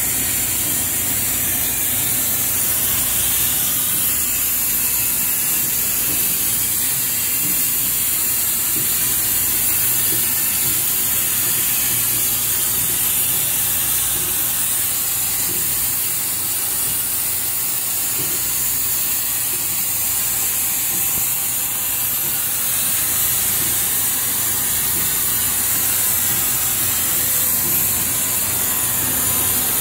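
Steady hiss with a low hum underneath from a powered-up CNC horizontal machining center standing idle, with no cutting, tool change or pallet change heard.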